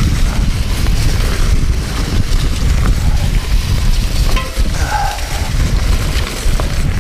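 Mountain bike riding fast down a leaf-covered dirt trail: wind buffeting the chest-mounted camera's microphone over the rolling tyres, with scattered knocks and rattles from the bike.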